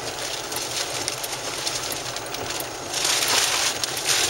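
Steady rushing noise of wind and road heard inside a car on a wet highway, with no clear engine note. About three seconds in it turns into a louder, hissier rush.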